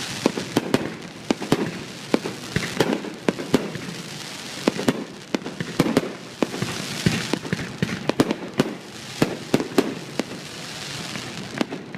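Fireworks going off: many sharp, irregularly spaced bangs and pops over a continuous crackling hiss.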